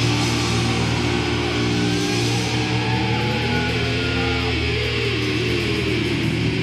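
Thrash metal band playing live at loud volume: distorted electric guitars hold a low droning note while sliding, wavering guitar tones bend up and down over it.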